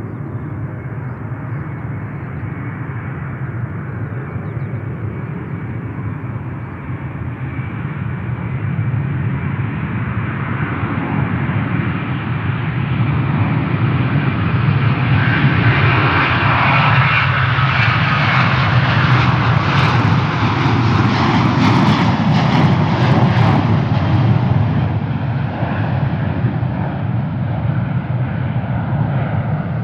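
Airbus A330-300 twin turbofan engines at takeoff power: a steady jet engine noise that builds for about the first half and is loudest around two-thirds of the way through, then eases a little.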